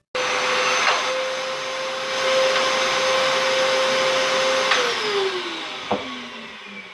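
Hoover Carpet Basics Power Scrub Deluxe carpet washer running with a steady whine, then switched off about five seconds in, its motor falling in pitch as it winds down. A sharp click comes near the end.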